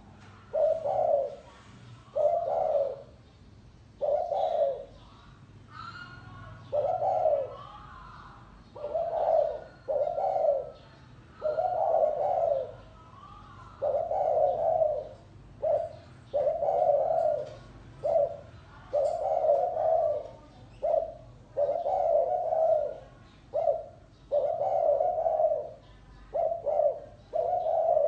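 Spotted dove cooing: a long run of low, mellow coo notes, some single and some in quick pairs or short groups, separated by brief pauses.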